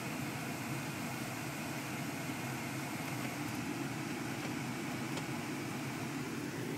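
Steady hum of a car heard from inside the cabin, a low, even drone with no sudden sounds.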